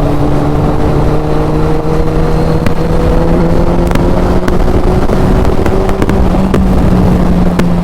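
Suzuki Hayabusa's 1340 cc inline-four engine pulling hard under acceleration, its pitch climbing slowly and steadily. Wind rushes heavily across the rider's microphone.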